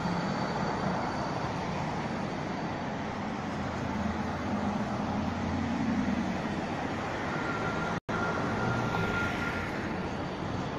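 Street traffic: cars driving past and a Vienna tram moving along the rails, a steady mix of engine and rolling noise with a faint thin whine in the second half. The sound drops out for a split second about eight seconds in.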